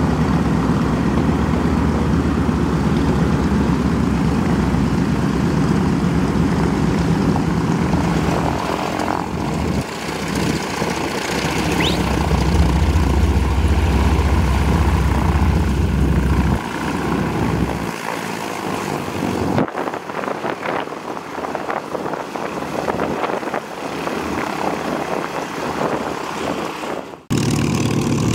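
Piston engines of vintage warplanes (a C-47, a T-6 Texan, a P-51 Mustang) running at taxi power, propellers turning: a steady low drone that changes abruptly several times as the shots cut between aircraft, quieter for a stretch in the second half.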